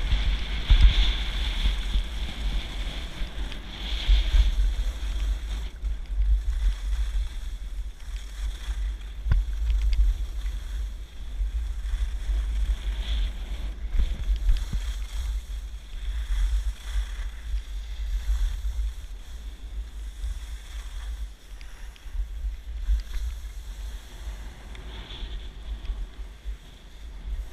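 Wind buffeting the microphone of a skier moving downhill, with the hiss and scrape of skis on snow that swells and fades with the turns.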